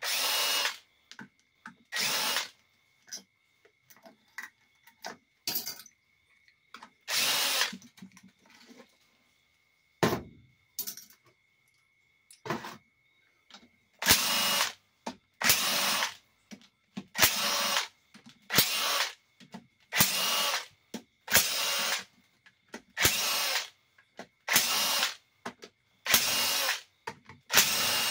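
A power drill-driver spinning out the 10 mm valve-body bolts of a 4L60E automatic transmission in short bursts, a few at first and then one about every second and a half from about halfway through. Small clicks and taps of bolts and parts being handled come between the bursts.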